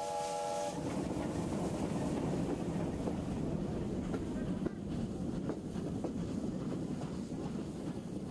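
A steam locomotive's whistle sounds a chord that ends less than a second in, then the train runs on along the rails with a steady rumble and a few clicks of wheels over the track.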